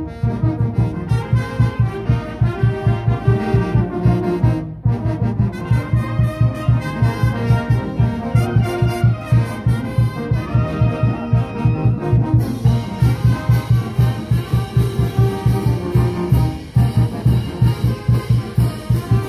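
Brass band of trumpets and trombones playing a tune over a steady drumbeat, with a brief dropout about five seconds in.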